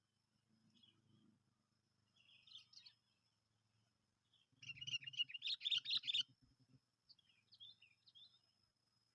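Sooty-headed bulbul (kutilang) calls: scattered short chirps, then a burst of rapid chattering calls about four and a half seconds in that lasts roughly a second and a half, followed by a few more chirps.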